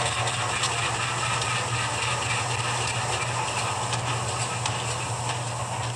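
Rapido SD10 model diesel locomotive's sound decoder playing the prime mover shutdown sequence through its small onboard speaker. The engine sound runs with a steady hum and a fast, even beat, easing slightly near the end.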